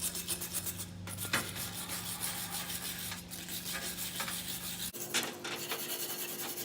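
Wire brush scrubbing loose rust off an old iron wrench by hand, in quick back-and-forth scraping strokes.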